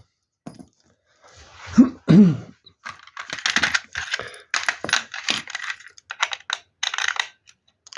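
A run of quick, irregular clicks and clatters, like small hard objects being tapped or handled, densest in the second half. Two short, low pitched sounds come about two seconds in.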